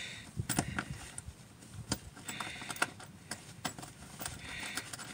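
Irregular small clicks and taps of a seat mounting bolt being lined up and threaded by hand into the seat rail, with two brief rustles.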